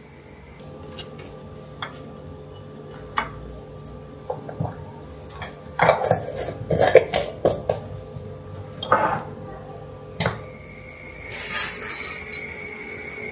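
Metal utensil clinking and scraping against a peanut butter jar, then scraping peanut butter across slices of toast on a ceramic plate, busiest about six to seven and a half seconds in. A few single clinks follow, and near the end a ladle stirs jam in a stainless steel saucepan.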